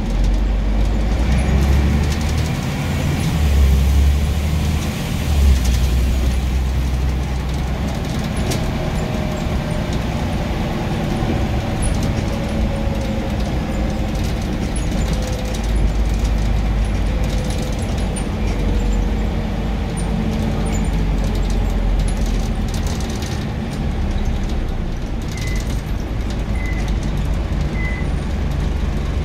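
Scania N94UB single-deck bus under way, its diesel engine rumbling and swelling under power, with a whine through the middle. Three short high beeps sound near the end.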